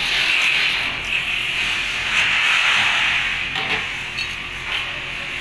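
Steady hissing, rubbing noise of a tool carriage being slid along the edge of a sheet-steel door panel, with a few faint clicks.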